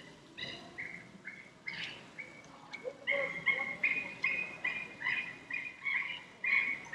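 A bird calling in a series of short, repeated chirping notes, about two a second at first and quickening to about three a second partway through.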